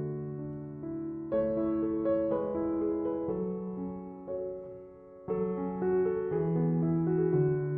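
Slow instrumental piano music with held chords that change roughly once a second. It fades briefly about five seconds in, then new chords come in.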